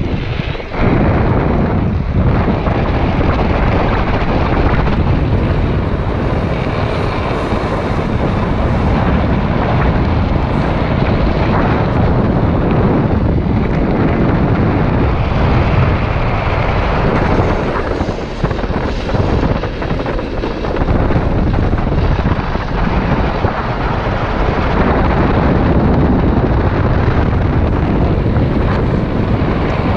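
Steady heavy wind rush on a helmet-mounted camera's microphone, mixed with the rumble of a drift trike's wheels rolling on asphalt as it coasts downhill at speed.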